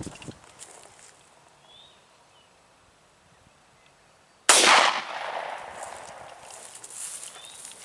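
A single .45 ACP shot from a Ruger P90 pistol about halfway through: a sharp crack followed by a long echo that dies away over about three seconds.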